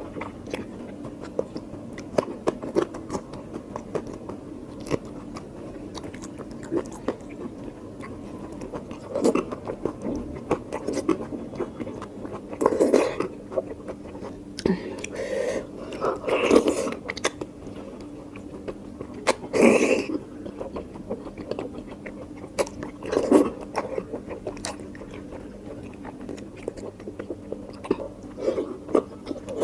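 Close-miked eating: steady chewing with many small wet mouth clicks, and several louder bites or crunches every few seconds through the middle.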